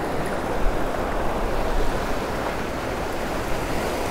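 Steady wash of shallow beach surf breaking and foaming, with some wind noise on the microphone.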